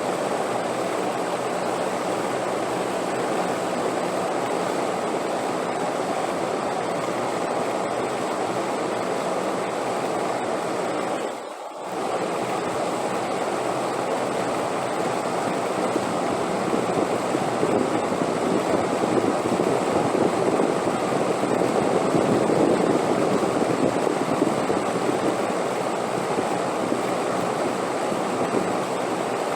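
Steady rushing wind noise that swells louder in the second half. It drops out briefly about eleven seconds in.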